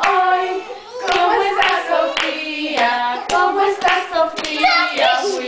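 A group singing a children's song, with hands clapping along about twice a second.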